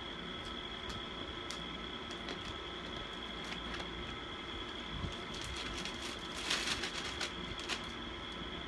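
Quiet room noise: a steady hiss with a thin high whine, with scattered faint clicks and a short cluster of crackles about six and a half seconds in.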